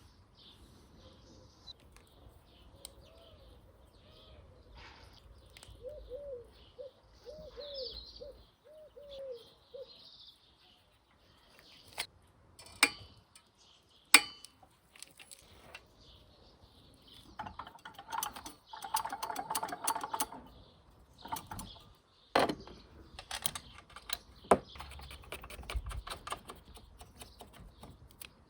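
Scattered sharp clicks and knocks of parts being handled, with a busier clattering stretch past the middle and faint bird chirps behind.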